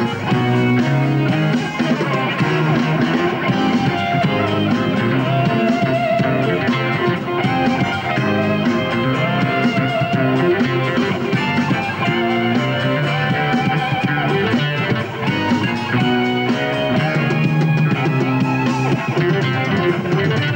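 Live rock band playing: guitar over a drum kit, with keyboards and programmed bass.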